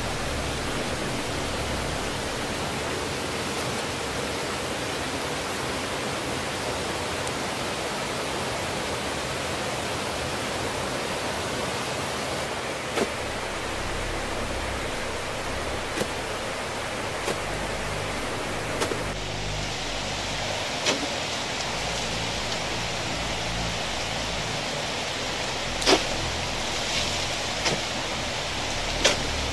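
Steady hissing jungle background noise, with about eight short, sharp knocks scattered through the second half, the loudest about four seconds before the end.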